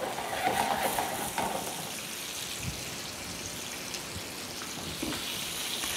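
Lamb pieces frying in olive oil in an aluminium frying pan: a steady sizzle as the meat begins to brown.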